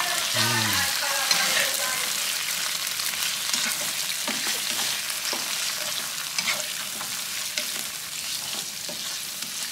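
Raw prawns sizzling in hot oil and sambal belacan paste in a non-stick wok, stirred and turned with a plastic slotted spatula that scrapes the pan now and then. The sizzle eases slowly.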